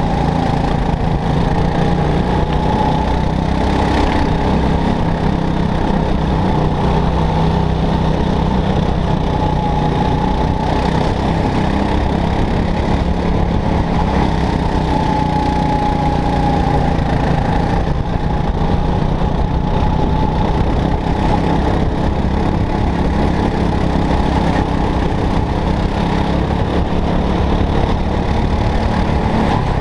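Go-kart engine running continuously under race load, heard from on board the kart, its pitch rising and falling a little as the driver accelerates and lifts through the corners.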